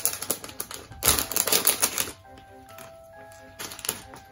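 Clear plastic bag of LEGO pieces crinkling, with small plastic bricks rattling inside as it is handled, in two spells: for about the first two seconds and again near the end.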